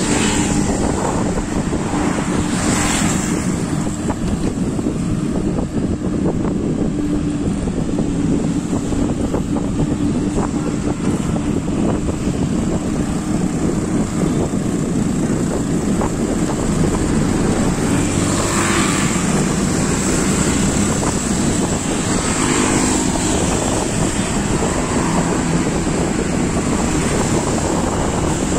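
Steady wind rush on the microphone and road noise from riding along a busy street, with motor traffic running alongside. Vehicles pass close by about three seconds in and twice more around twenty seconds in.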